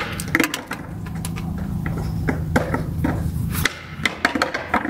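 Socket ratchet working the oil pan drain plug loose: a run of irregular metallic clicks, over a low steady hum that stops about three-quarters of the way through.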